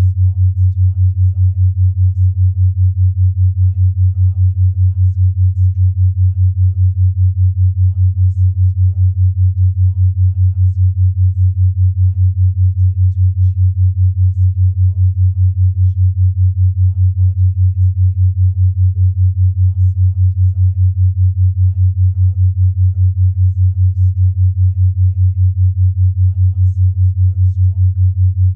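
A steady low sine tone pulsing evenly about five times a second: a 5 Hz binaural-beat track. A very faint murmured voice lies far beneath it.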